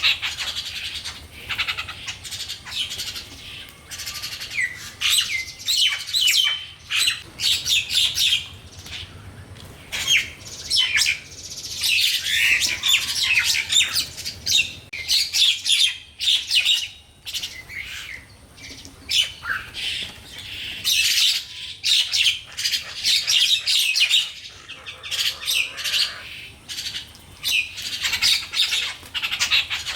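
A busy bird chorus: many small birds chirping and calling in short, high, overlapping notes, almost without pause.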